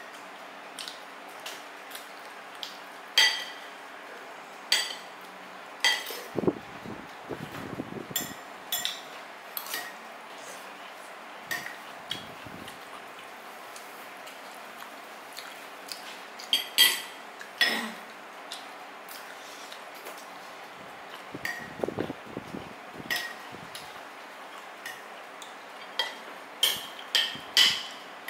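Cutlery clinking and scraping against dishes during a meal: scattered, irregular sharp clinks with a short ring, bunched in flurries a few seconds in, in the middle and near the end.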